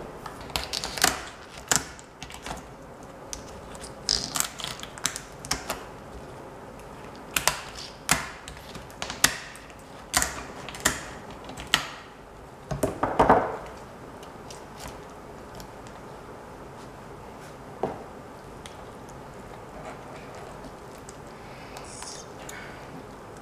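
Knife cutting and cracking through a crayfish tail's shell on a plastic cutting board: a run of sharp, irregular cracks and clicks, then only the odd click after about fourteen seconds.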